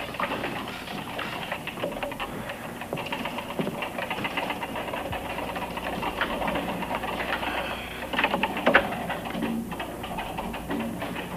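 Computer keyboard typing: rapid, irregular clicking of keys, with a louder flurry about eight or nine seconds in.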